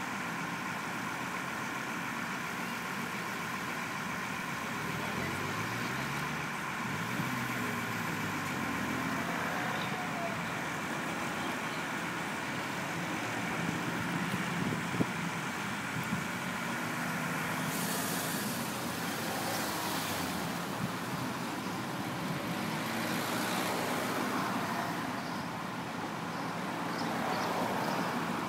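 A vehicle engine running steadily, its pitch rising and falling a few times early on as it is revved. Two short bursts of hiss come past the middle.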